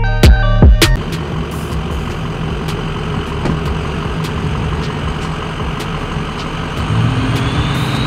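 A lifted pickup truck's engine running as the truck rolls slowly closer, getting louder near the end with a high whine rising. A hip-hop beat ends in the first second.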